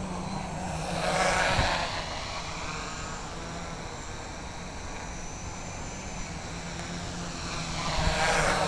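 Honey Badger R6 prototype quadcopter's motors and propellers running in flight, a steady whir that swells loud twice as the quad flies close past, about a second in and again near the end.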